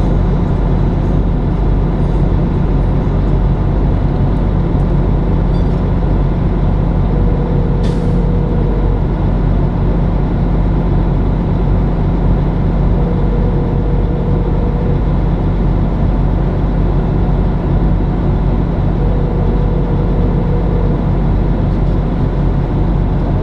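Truck's diesel engine idling steadily with the truck standing still, heard from inside the cab. A faint tone sounds three times, about two seconds each, roughly six seconds apart.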